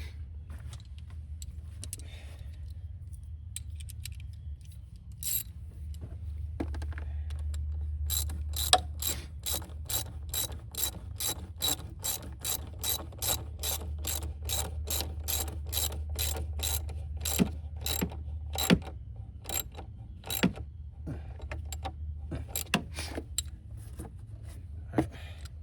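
Hand socket ratchet clicking as a 10 mm bolt is tightened, in a long even run of about three clicks a second through the middle, with scattered clicks before and after.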